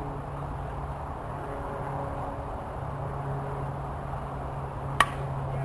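A single sharp crack about five seconds in, typical of a softball bat striking the ball, with a brief ring, over a steady low background hum.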